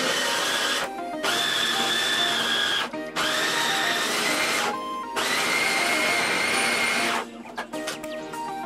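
Bosch MCM3501M food processor motor running in four bursts of about one and a half to two seconds each, with short breaks between, as the blade grinds a dry granular ingredient; each burst is a high whine over a rushing noise, and the last one runs at a higher pitch.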